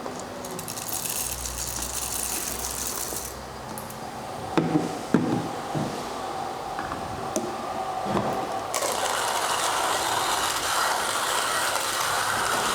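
Mazzer Omega hand coffee grinder being cranked, its soft burr set crushing espresso-fine coffee beans with a continuous gritty grinding, growing louder about three quarters of the way in.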